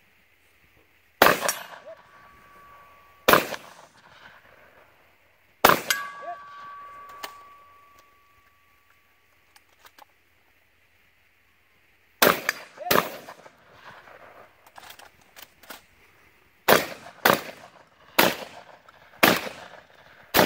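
Shotgun shots, about ten in all: three spaced a couple of seconds apart, then after a pause a quicker string of seven. Steel targets ring on with a steady tone for a few seconds after the first and third shots.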